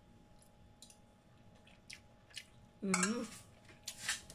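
Metal spoon and fork clicking against a stainless steel mixing bowl as noodle salad is handled: a handful of light, separate clicks. About three seconds in, a short burst of voice is the loudest sound.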